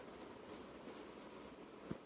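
Quiet room tone with one faint click near the end.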